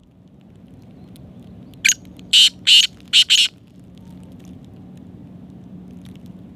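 Black francolin calling: a loud, rasping call of five short notes in quick succession, beginning about two seconds in and lasting about a second and a half, over a faint steady low hum.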